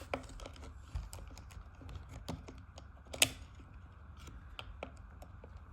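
Small irregular clicks and taps of the chainsaw's plastic throttle trigger and its spring being worked into the rear handle by hand, with one sharper click a little after three seconds in.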